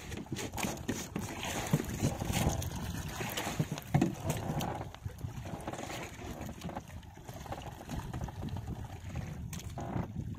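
Wind buffeting the microphone on a small outrigger boat at sea, with a rough, gusty low rumble and sea water washing against the hull; a little louder in the first few seconds.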